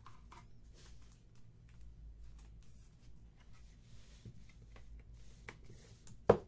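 Trading cards and a hard plastic top loader being handled on a table: faint rustles and light clicks of card and plastic, then a sharp knock about six seconds in as the card is set down.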